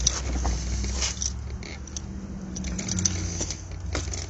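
Low, steady hum of an idling vehicle engine, with scattered clicks, rustles and scrapes over it.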